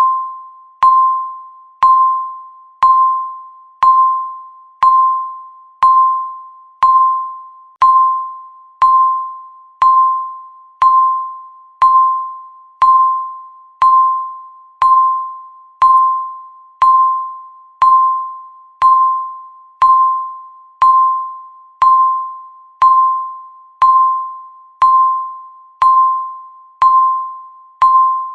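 Countdown timer beep sounding once every second: a single ringing tone, each strike sharp and fading away before the next.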